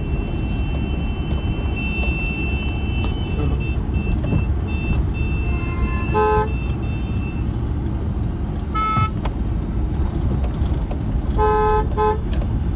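Road and engine noise heard from inside a moving car, with vehicle horns honking: a long, thin high horn in the first few seconds, a short honk about six seconds in, another around nine seconds, and two quick honks near the end.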